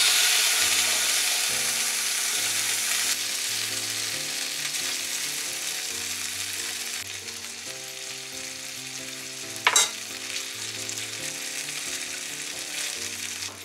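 Chicken thigh pieces sizzling in mayonnaise in a hot black iron frying pan, loudest as the meat goes in and easing off gradually as it fries. Chopsticks shift the pieces, with one sharp tap against the pan about ten seconds in.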